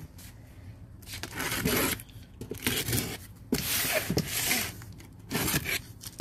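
Knife cutting through the packaging on a pallet: a run of about four scraping, tearing strokes with short pauses between them.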